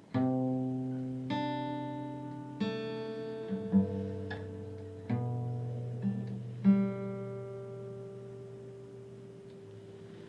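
Instrumental music: five chords on a plucked string instrument, each struck and left to ring and fade, the last one dying away slowly.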